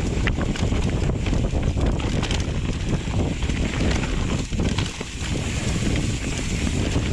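Wind buffeting an action camera's microphone as a mountain bike descends a rocky trail, with tyres rolling over rock and dirt and the bike knocking and rattling over the bumps.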